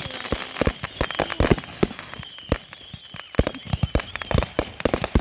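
Fireworks and firecrackers going off: many sharp bangs and cracks in quick, irregular succession, with a thin high whistle running beneath them.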